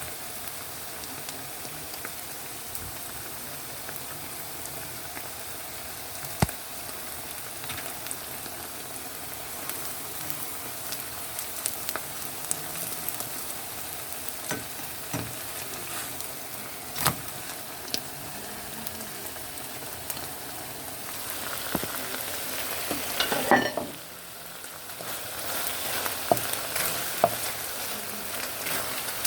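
Food sizzling and frying in oil in a frying pan, a steady hiss with occasional sharp clicks of a utensil against the pan. Near the end there is a louder clatter, the sizzle drops off briefly, then comes back louder.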